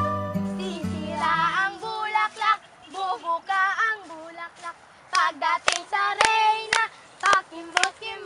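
Soft plucked-string music fading out in the first second or two, then girls' voices singing together, joined about five seconds in by hand claps in time, about two a second.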